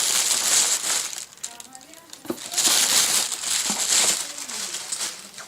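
Packaging rustled and crinkled by hand, in two long stretches with a short lull between.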